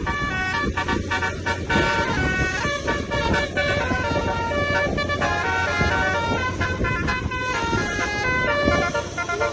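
Tour bus telolet horn (a basuri multi-tone air horn) playing a quick melody of stepped notes, several tones sounding together, over a steady low rumble.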